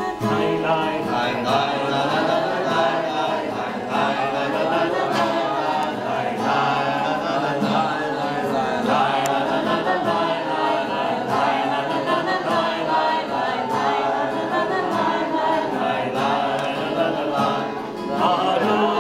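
A group of people singing a Havdalah song together.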